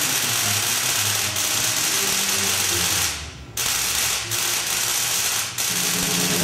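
A high-voltage Tesla coil discharging into water between two electrodes, giving a steady, loud, hissing buzz. It drops out for about half a second around three seconds in, then resumes. Background music plays underneath.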